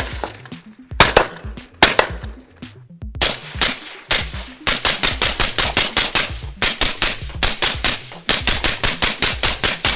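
AR-15 rifle firing .223 rounds: a few single shots spaced about a second apart, then from about halfway rapid strings of shots at about six a second, with a brief break near the end.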